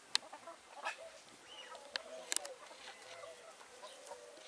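Brahma and Cochin chickens clucking softly, a run of short, low, bending clucks, with a few sharp clicks scattered among them.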